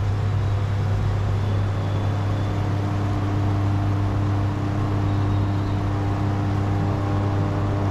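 Steady low electric motor hum with a faint whir, holding one even pitch throughout.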